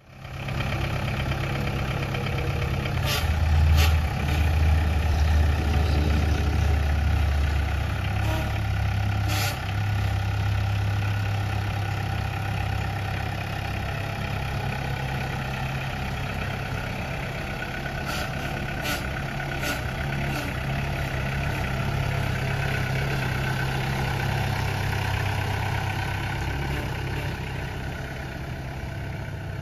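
New Holland Boomer 50 compact tractor's diesel engine running steadily as it is driven, louder and deeper for a few seconds near the start. A few short sharp clicks stand out here and there.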